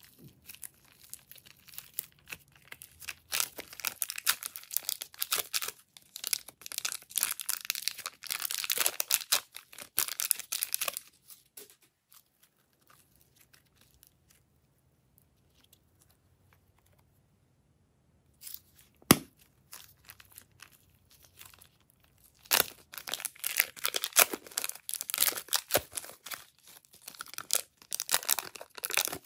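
Plastic piping bags crinkling as sticky slime is squeezed and peeled out of them, with dense crackling and tearing sounds. The crackling stops for several seconds in the middle, while the slime is stretched, and a single sharp click comes just after. It starts again for the last seconds, as plastic is peeled off the slime.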